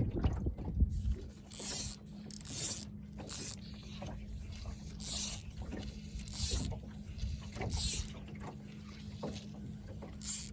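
Small electric boat motor starts about a second in and hums steadily under way. A short high hiss repeats roughly every second over the hum.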